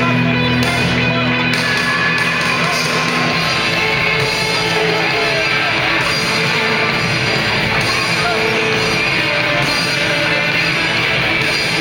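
Loud rock music with distorted electric guitar, playing steadily.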